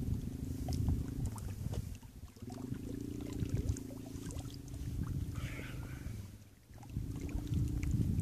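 A man blowing a low, hooting whistle through cupped hands, three long steady notes with the middle one the longest, over a low wind rumble and lapping water.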